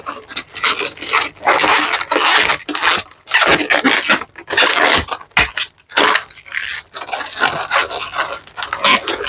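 Latex twisting balloons squeaking and rubbing against each other as a long pink balloon is squeezed, twisted and locked into the next layer of a woven balloon structure, in repeated squeaky bursts with short pauses between.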